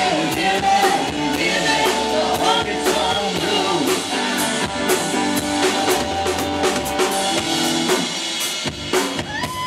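Live rock band playing through a PA: a drum kit beating a steady rock rhythm with bass and snare drum, under electric guitar and a woman singing into a handheld microphone.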